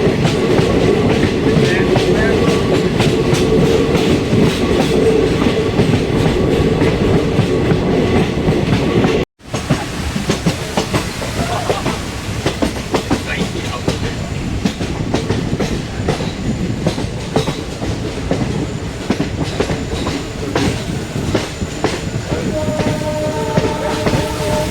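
Passenger train running, heard from on board: a steady rumble with wheels clattering over the rail joints. There is a brief cut to silence about nine seconds in, then the clattering goes on, with a few steady held tones near the end.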